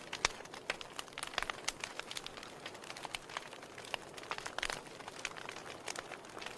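Wood fire in a fireplace crackling: irregular pops and snaps from burning firewood over a soft hiss, with a sharp loud snap just after the start and a quick run of pops a little past the middle.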